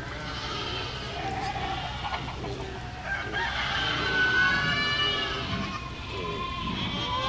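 Farm animals calling in a herd: long, drawn-out pitched cries that overlap, the longest about halfway through.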